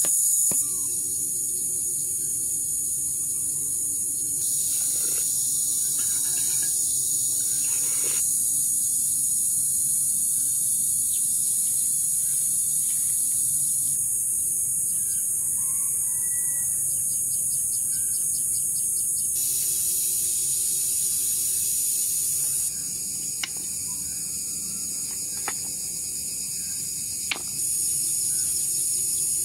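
Steady high-pitched buzzing of an insect chorus in the forest, its level jumping at each cut. Near the end come three sharp knocks of clay bricks being picked up and set down.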